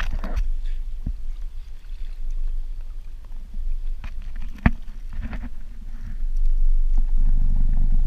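Water sloshing and splashing against a boat's hull over a steady low rumble, with a few sharp knocks; the loudest knock comes near five seconds in.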